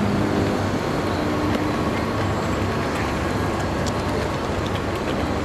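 Steady street hubbub of an outdoor crowd and road traffic: a mix of indistinct voices over a continuous rumble of traffic, with no single sound standing out.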